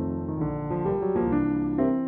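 Grand piano playing on its own from an Ampico reproducing-piano roll of a fox-trot medley: chords and a melody over bass notes, changing several times a second.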